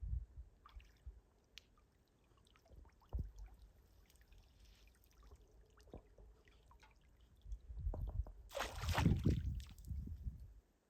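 Water splashing and pouring for a couple of seconds near the end, loudest about nine seconds in, with low wind rumble on the microphone and small knocks before it.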